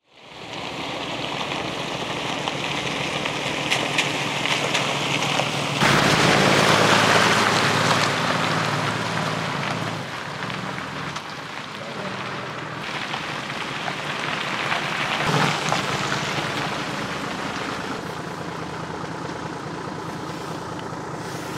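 Toyota Land Cruiser's engine running as it drives slowly in steady rain, the rain hissing over everything. The sound changes abruptly several times between shots and is loudest about six to eight seconds in.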